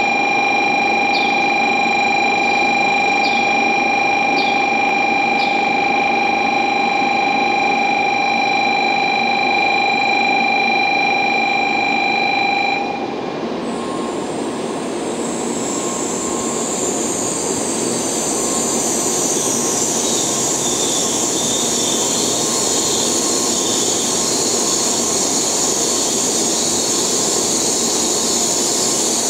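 A steady, multi-pitched electronic tone sounds through the first half and stops about halfway through, as an N700A-series Shinkansen train runs into the platform. Over the second half the train's wheels and the rush of air build into a loud, steady high hiss as it draws alongside.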